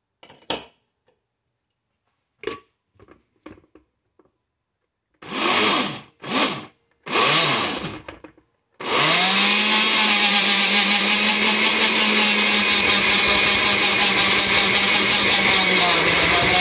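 Oster blender with a glass jar grinding dry cereal into crumbs. A few light clicks come first as it is handled. It gives three short pulses about five seconds in, then runs continuously at a steady pitch from about nine seconds on.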